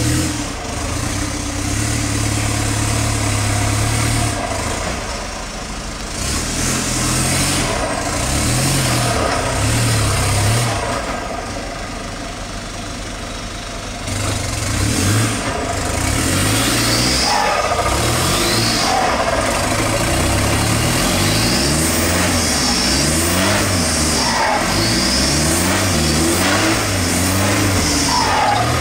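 Off-road vehicle's engine working at low speed, revving up and easing off again and again as the throttle is worked, with a quieter spell about halfway through.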